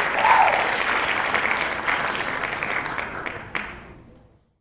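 Pub audience applauding and cheering at a live rock gig, with one brief cheer just after the start; the applause fades out to silence near the end.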